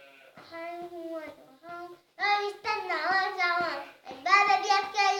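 A young child singing alone, with no accompaniment, in drawn-out notes that bend in pitch. The singing starts soft and gets much louder about two seconds in.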